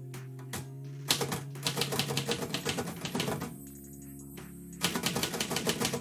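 Manual typewriter keys striking in quick runs: one run starting about a second in, a short pause, then another near the end. Background music with sustained tones plays underneath.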